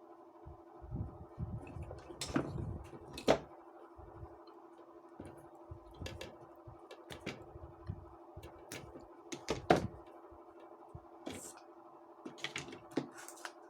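Irregular clicks and knocks of parts and tools being handled, loudest twice (about 3 s and nearly 10 s in), over a steady low hum.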